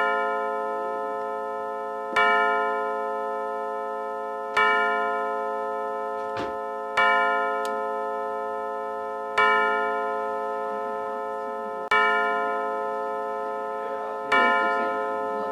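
A mantel clock's quartz chime movement sounding the hour as a slow series of single deep bell strikes, seven in this stretch, about two and a half seconds apart. Each strike rings on and fades before the next.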